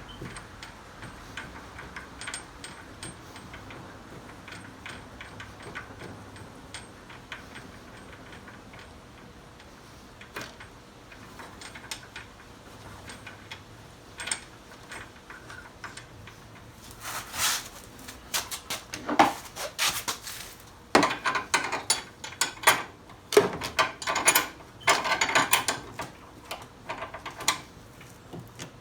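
Hand-tool work on a UTV's suspension: scattered metal clicks and clatter, faint at first, then louder and busier in the last ten seconds or so, with a ratchet-like clicking among them.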